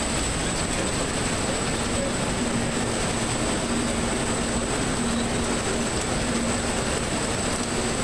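Fruit and vegetable sizing machine running: the chain conveyor of cups and the rotating brush rollers give a steady mechanical rattle and rumble, with a thin steady high whine over it.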